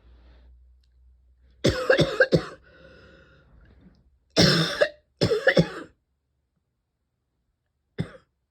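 A person coughing in harsh bouts: three quick coughs, a noisy breath in, two more bouts, then one short cough near the end. It is a persistent cough from a throat and lungs that feel tickly all the time.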